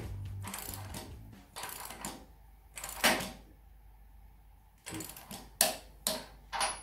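Background music ending in the first second or so, then scattered sharp metallic clicks and knocks from a long torque wrench being worked on the concrete anchor bolts at the base of a two-post car lift column. The loudest click comes about three seconds in, and three quick ones follow near the end.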